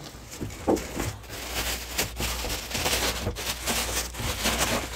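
Cardboard packaging and the plastic bag around a split air conditioner's indoor unit rustling and crinkling as the unit is unpacked, with scattered knocks from handling the box.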